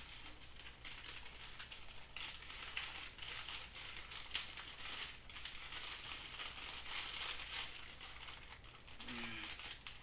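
Loose Lego bricks clicking and rattling against each other as a hand rummages through a container of pieces, a dense run of small plastic clicks with some rustling.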